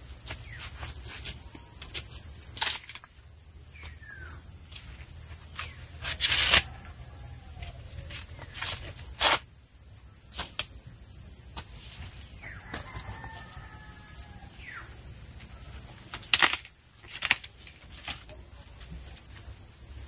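A steady, high-pitched buzz of an insect chorus, with several sharp cracks and rustles and a few faint bird calls.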